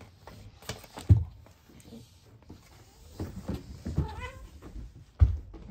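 A house cat meows once, a short wavering call about four seconds in. Two dull thumps, the loudest sounds, come about a second in and near the end.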